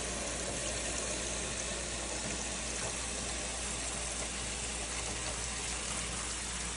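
Tap water running steadily into the robot vacuum base station's clean-water tank as it is filled with plain water.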